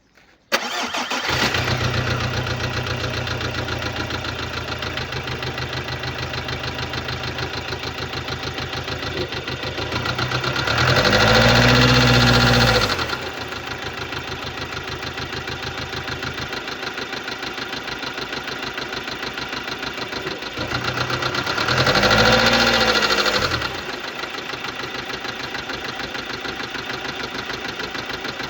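Subaru Legacy 2.0-litre diesel engine started, then idling with a fast, even ticking clatter, and revved up and let drop back twice. The ticking is the sound of defective hydraulic valve lifters.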